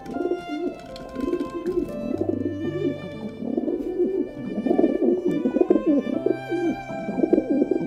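A flock of feral pigeons cooing, many low, wavering coos overlapping without a break and growing louder about halfway through. Background music with sustained notes plays underneath.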